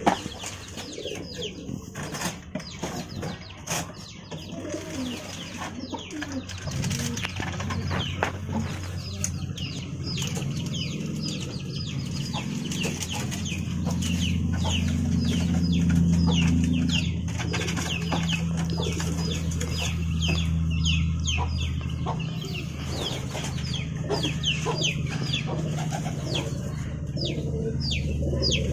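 Birds chirping in many quick, short, falling calls, again and again, over a low steady hum that comes in about a quarter of the way through.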